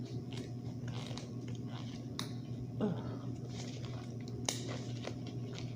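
Eating sounds from a seafood meal: chewing and squishy mouth sounds with a few sharp clicks from handling the shellfish, over a steady low hum.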